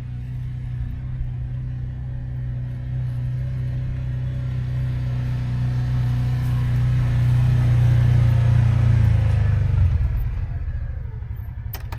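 Engine of a farm machine running with a steady low rumble, growing louder to a peak about two-thirds of the way in and then fading away. A short clatter comes just before the end.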